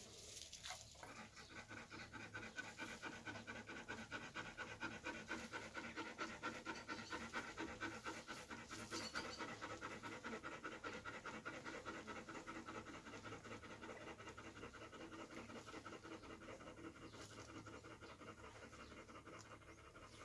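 Freshly whelped Belgian Malinois mother panting, faint and rapid, about five even breaths a second, starting about a second in.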